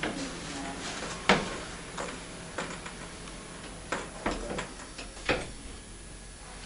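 Irregular light knocks and clicks, about seven scattered over a few seconds, the loudest about a second in and again near five seconds.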